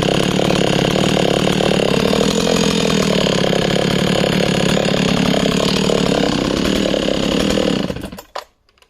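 Husqvarna 61 two-stroke chainsaw with a full-chisel chain running at high revs, its pitch sagging under load and recovering while cutting wood. The engine cuts off suddenly near the end, leaving a few light clicks.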